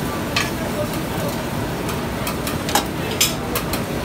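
Steady frying and sizzling from a large oyster-omelette griddle, mixed with a plate conveyor running and a few sharp metal clinks, the loudest about three seconds in. Voices murmur underneath.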